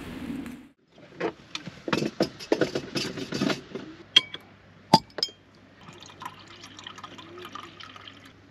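A drink poured from a bottle into a glass, glugging unevenly for about two and a half seconds. It is followed by a few ringing glass clinks and a sharp knock about five seconds in, as the bottle or glass is set down.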